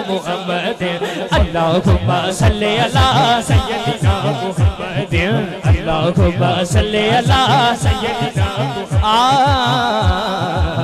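A man singing a naat into a microphone over a PA, in long ornamented lines with a deep pulsing beat about three times a second beneath; near the end he holds one long quavering note.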